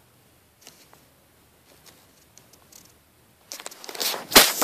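Faint scattered rustles and ticks, then, about three and a half seconds in, loud scraping and rustling with sharp clicks as the camera is jostled and its microphone rubs against fabric.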